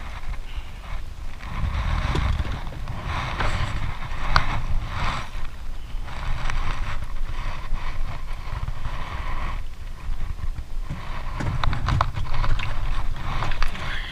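Wind buffeting the camera's microphone in gusts, with water sloshing and splashing against the boat's hull as a landing net is worked through the water, and a few light knocks.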